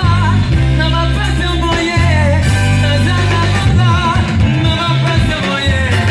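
Live band music with singing: voices with a wavering vibrato over a strong bass line, guitars, drums and keyboard, played through a PA.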